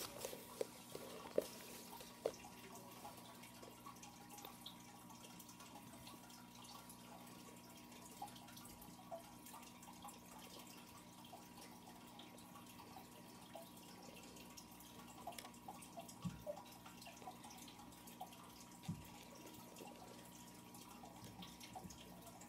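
Faint, scattered light clicks of small plastic perler beads being set by hand onto a clear plastic pegboard, more of them together past the middle, over a steady faint hum with a thin high tone.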